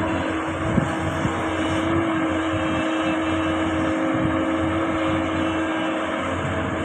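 Hydraulic excavator's diesel engine running steadily at working revs, with a constant hum-like tone over the engine noise and a brief knock a little under a second in.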